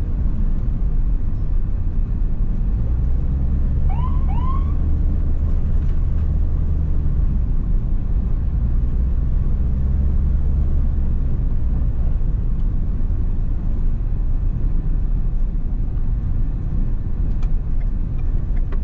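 Steady engine and road rumble of an ambulance driving, heard from inside the cab. Two short rising chirps come about four seconds in.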